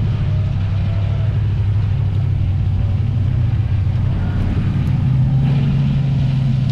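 Rock buggy's engine pulling under load as the buggy climbs a dirt ledge. It is a steady low drone that rises in pitch and gets louder about five seconds in as the throttle opens.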